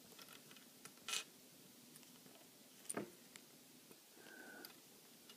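Near silence with a few faint clicks and a short rustle: hands handling fishing line and a lure as a fishing knot is cinched tight.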